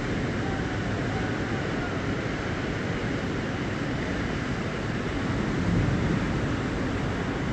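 Steady rushing noise of a storm, with a low rumble swelling briefly about six seconds in.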